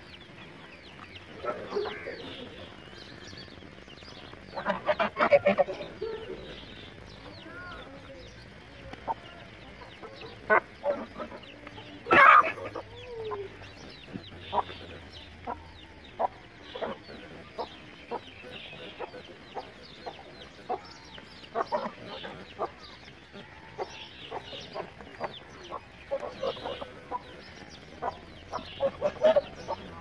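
Chickens clucking on and off in short calls, with a louder burst about five seconds in and the loudest call about twelve seconds in.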